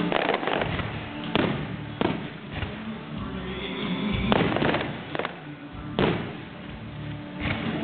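Aerial fireworks shells bursting overhead: about six sharp bangs at irregular intervals, one every second or two, with music playing underneath.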